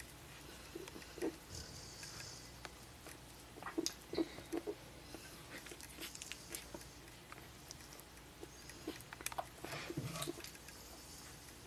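Newborn golden retriever puppies making small scattered squeaks and grunts, a few at a time, loudest about four seconds in and again near ten seconds, with faint rustling as they shift on the fleece.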